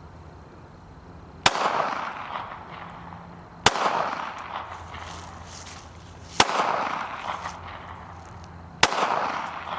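Four single pistol shots, a few seconds apart, each a sharp crack followed by about a second of echo, as a shooter fires slow aimed rounds at a target.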